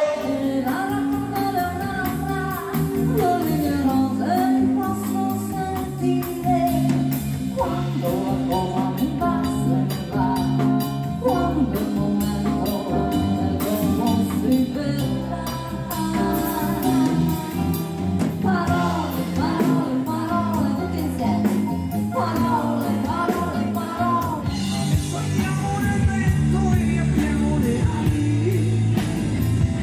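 Live band music with a lead singer over drums, bass and keyboard. About 25 seconds in it cuts to a different song, a rock band with drums and electric guitar.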